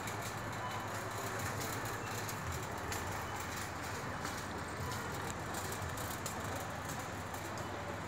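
Steady background din of a large warehouse store: a low hum and hiss with scattered faint clicks and clatter.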